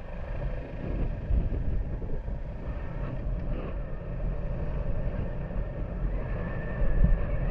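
Honda Super Cub's small single-cylinder four-stroke engine running as the bike gets moving, with steady low road and wind rumble that swells about a second in and again near the end.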